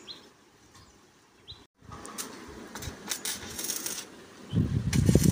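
Scattered light metallic clinks and taps on a steel roof-frame beam. A few short bird chirps come in the first two seconds, and louder low sounds come near the end.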